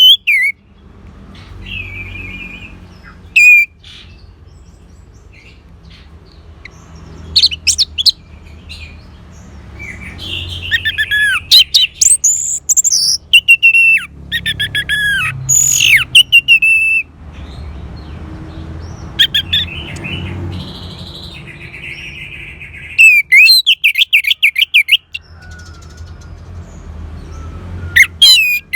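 Orange-headed thrush (anis merah) singing: loud phrases of rapid whistled notes that sweep down in pitch, broken by short pauses, over a faint low hum.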